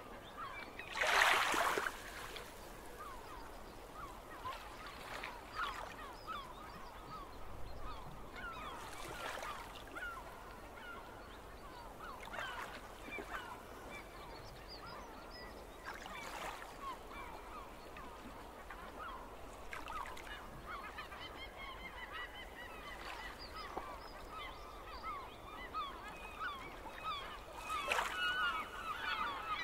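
Waves washing over shore rocks, with a splash every few seconds, the loudest about a second in. Under it, a flock of birds keeps up many short honking calls.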